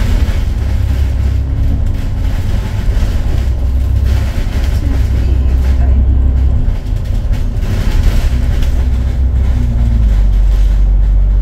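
A double-decker bus's engine and road noise heard from inside on the upper deck: a loud, steady low rumble whose engine note shifts a few times as the bus changes speed.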